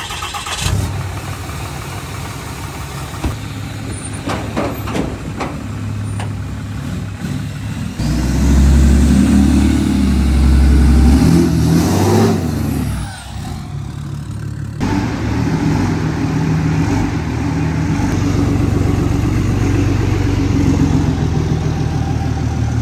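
Lifted Ram dually pickup's engine running, with a louder stretch of revving from about eight to twelve seconds in, then running steadily as the truck moves.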